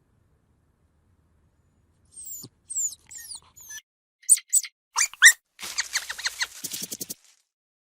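Small birds chirping. After about two seconds of quiet comes a run of quick, high chirps falling in pitch, then sharper chirps, and a short buzzy trill near the end.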